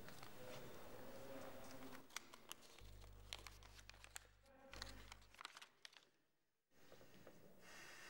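A folded paper note being unfolded in the hands, crinkling in a series of short, crisp crackles over faint room tone.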